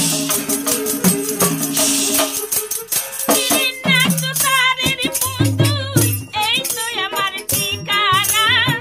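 Indian folk music: a rattling, tambourine-like percussion rhythm with pitched drum strokes, joined about three seconds in by a high, quickly wavering pipe-like melody, with a low steady drone underneath from about five seconds in.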